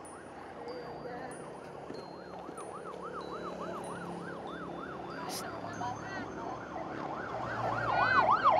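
Siren yelping in quick rising-and-falling sweeps, about three a second, growing louder near the end as it draws closer.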